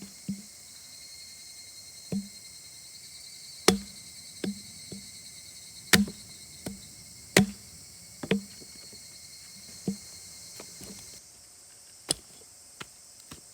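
Wood being struck: about a dozen irregular, sharp knocks, as in chopping or splitting firewood. A steady high chirr of insects runs behind.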